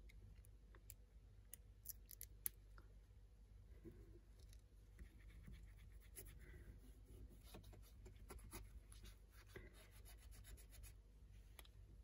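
Faint handling sounds: a few small clicks and scrapes of a thin metal pick working at the edge of an iPod Nano during the first couple of seconds, the sharpest about two and a half seconds in. Then a soft, scratchy rubbing of a cloth wiping over the screen glass.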